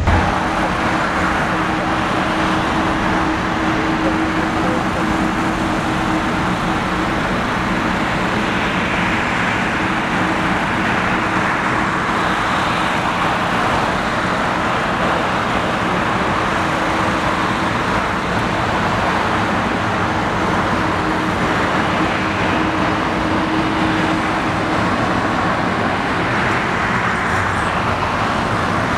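Steady traffic noise: an even roar of passing vehicles, with a constant hum held through most of it that stops about 25 seconds in.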